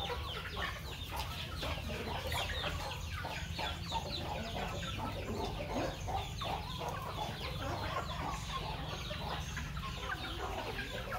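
A flock of free-range chickens clucking and calling while being fed, many short calls overlapping without a break.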